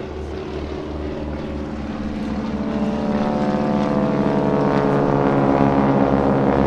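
Two Boeing Stearman biplanes' radial engines and propellers running in a formation pass, the sound growing steadily louder as they approach.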